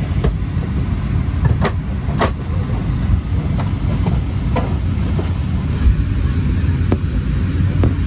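Steady low rumble inside a Boeing 737-800 airliner cabin, with a few scattered clicks and knocks.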